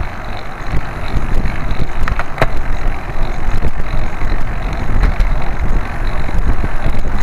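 Wind noise on the microphone of a camera on a moving bicycle, mixed with road noise, with a couple of short clicks a little after two seconds in.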